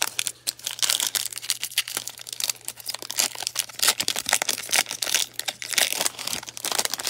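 Foil wrapper of a Panini Donruss basketball card pack crinkling as it is torn open by hand: a dense run of irregular crackles.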